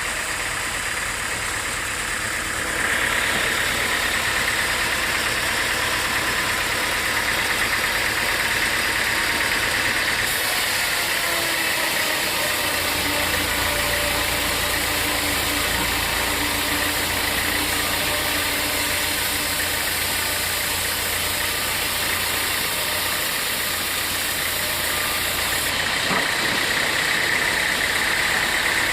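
Sawmill machinery running steadily, an engine-like drone with a high whine on top; it gets louder about three seconds in.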